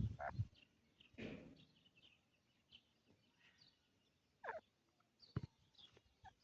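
Faint, scattered high chirps of small birds, with a few brief louder knocks or calls in between, one sharp click about five and a half seconds in.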